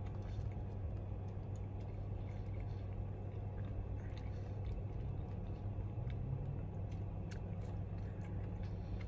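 A person chewing a mouthful of Italian hoagie, with faint, irregular wet clicks and smacks, over a steady low hum.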